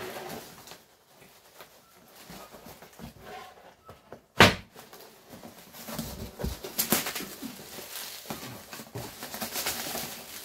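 Cardboard box and bubble wrap being handled and pulled apart: quiet rustling at first, a single sharp click about four seconds in, then busy crinkling and rustling of cardboard and plastic wrap with many small crackles.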